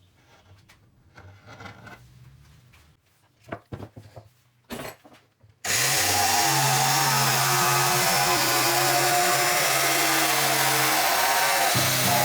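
A few light knocks, then a power tool starts suddenly about six seconds in and runs steadily, loud, with a low hum under a dense whir.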